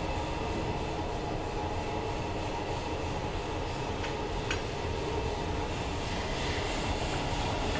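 Steady mechanical rumble and hiss of running machinery, with a faint high whine and two light clicks about four seconds in.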